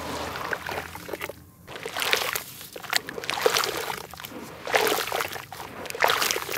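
Hands sloshing and squelching through thick wet red clay slurry in a basin, with a red dirt block being pressed down into it. The result is irregular wet swishes and splashes, a few of them louder than the rest.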